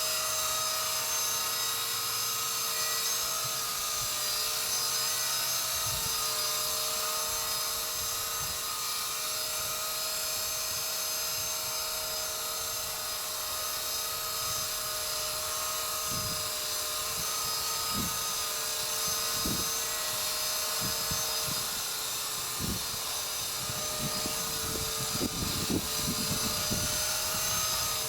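Walkera V120D02S micro RC helicopter hovering: a steady high-pitched motor whine with rotor hum, holding the same pitch throughout. From about halfway, scattered low gusts of wind buffet the microphone.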